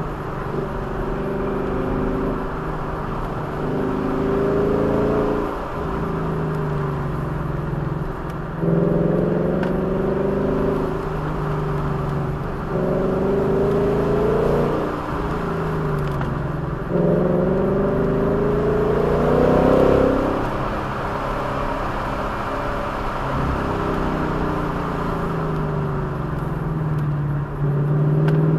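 Engine of the vehicle being driven, its revs climbing for a few seconds and then dropping sharply, over and over, about ten times.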